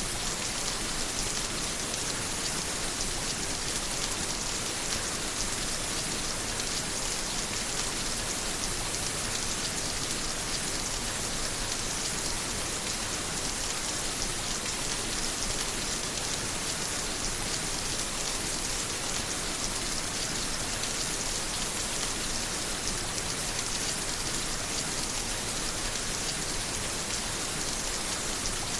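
Steady rain falling, an even hiss of many drops with no thunder claps or pauses.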